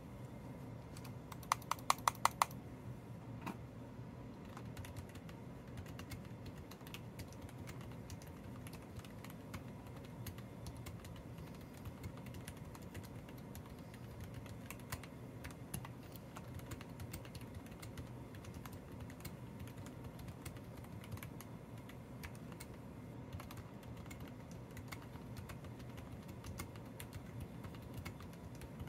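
Typing on an RK61 mechanical keyboard fitted with lubed CIY Red Evo switches on 80 g springs, with foam, tape and Holee mods: a steady stream of keystrokes. About two seconds in, a quick run of about five louder clacks with a ringing tone stands out.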